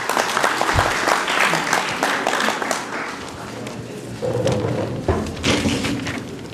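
Audience applauding, the clapping fading out about three seconds in, with a few voices after it.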